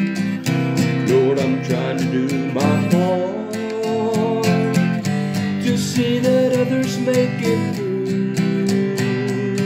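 Acoustic guitar strummed steadily through the chords of a song in the key of C, with a held, wavering melody line above it from about three seconds in: an instrumental break between verses.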